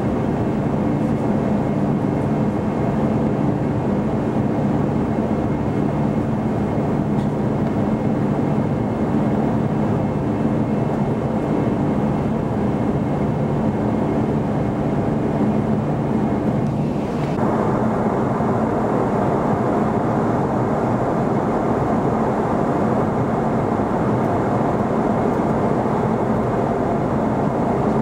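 Cabin noise inside an Airbus A340-300 airliner in flight: the steady roar of its CFM56 turbofan engines and the rush of air past the fuselage, heard from a window seat. The roar carries a low engine hum that fades about two-thirds of the way through, leaving an even rushing.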